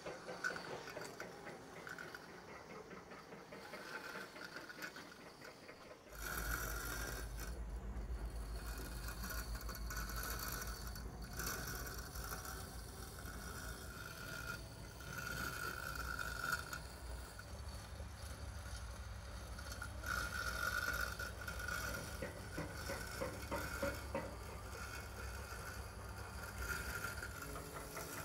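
Battery-powered RoboUP robotic lawn mower running over the grass, its motor giving a steady whine. A low rumble comes in suddenly about six seconds in and carries on.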